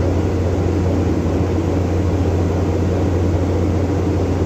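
Steady drone of a vessel's engines running under way, with a strong low hum over a broad rushing noise, heard from on deck.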